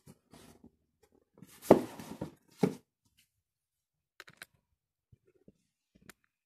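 Household objects being handled and set down: a sharp knock about a second and a half in with a brief rustle, a second knock a second later, then a few light clicks.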